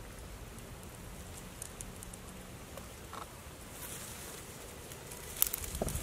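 Soft pattering and scattered small clicks of shallow trickling water, over a steady low rumble, with one sharper click near the end.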